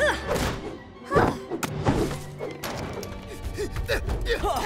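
Cartoon thuds and crashes over orchestral action music, the loudest just after the start and about a second in.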